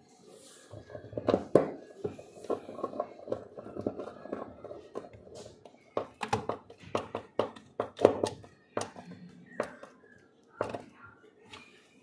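The centre nut that holds a washing machine's plastic pulsator on its gearbox shaft is being tightened by hand and screwdriver. There is a run of irregular clicks and knocks of the tool and fingers on the pulsator, with handling rumble between them.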